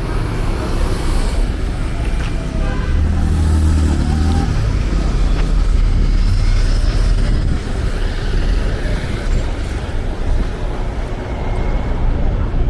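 Road traffic noise: cars passing close by with a steady low rumble. One vehicle's engine note stands out about three to four seconds in.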